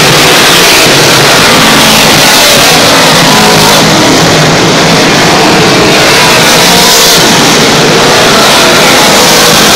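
A pack of dirt-track modified race cars running laps at racing speed, their V8 engines making a continuous loud din at full throttle.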